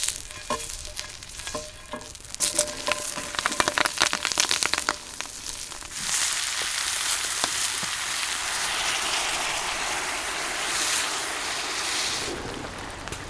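Food sizzling loudly and steadily in a pan over a campfire, as sukiyaki is cooked. It starts suddenly about halfway in, after a run of clicks and light knocks with short ringing tones.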